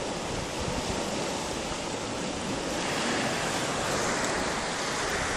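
Steady rushing noise of sea surf against a rocky shore, mixed with wind on the microphone.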